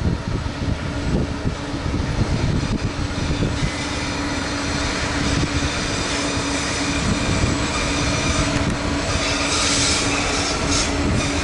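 Loaded bauxite train passing at close range: the Aurizon S-class diesel locomotive's engine rumbling as it goes by, then the bauxite wagons rolling past. Their wheel noise rises into a high squeal from about four seconds in and is loudest near the end.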